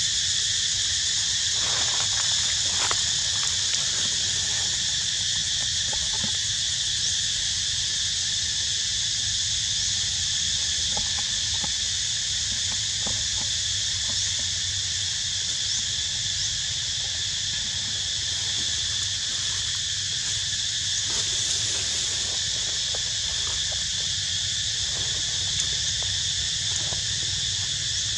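Steady, high-pitched chorus of forest insects, with faint scattered clicks.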